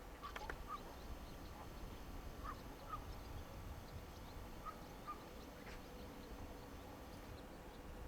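Faint bird calls, short notes in pairs about every two seconds, over a low outdoor rumble.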